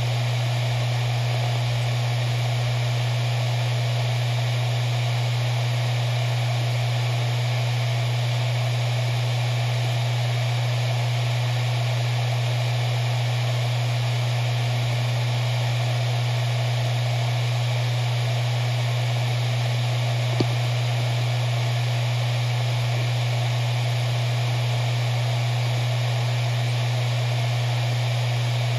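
Four-platter Maxtor MaXLine Pro 500 hard drive spinning steadily at its full 7200 rpm: a steady hum with a hiss over it, and one short click about twenty seconds in.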